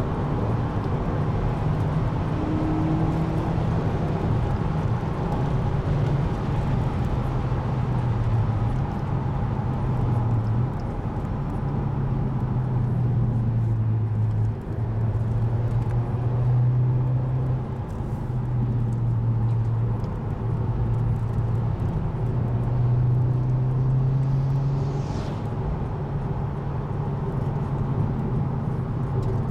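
Car engine drone and tyre and road noise heard from inside the cabin while driving, steady, with the engine note shifting slightly in pitch now and then.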